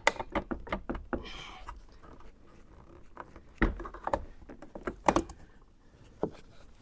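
Scattered plastic clicks and knocks from a car's interior door trim being pried and handled, with a short scraping rustle a little over a second in.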